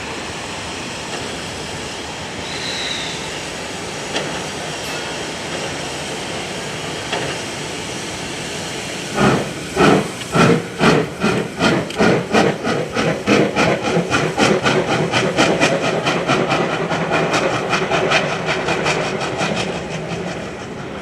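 Steam locomotive C57 1 hissing steadily at a standstill. About nine seconds in it starts off with loud exhaust chuffs, slow at first and quickening steadily as it accelerates.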